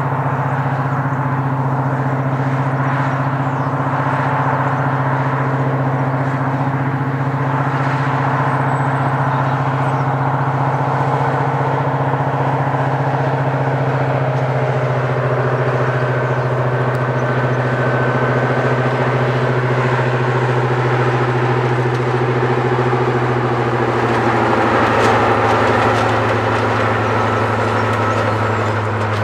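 A large diesel engine running steadily with a constant hum, its pitch easing down slightly about halfway through and again near the end.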